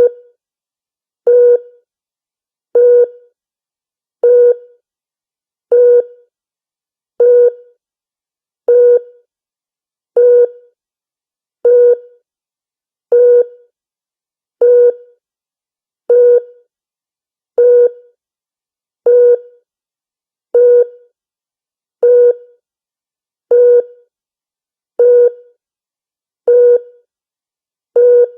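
Star Trek original-series starship bridge 'deflector alert' sound effect: a short electronic alert tone with a sharp start and a quick decay, repeating evenly about every one and a half seconds.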